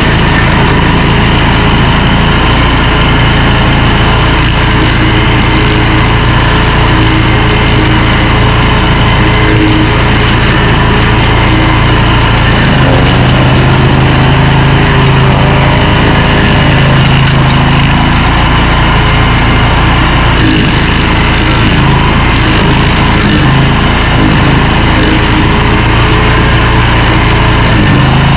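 Stump grinder engine running loudly and continuously as it works, its engine note shifting somewhat partway through.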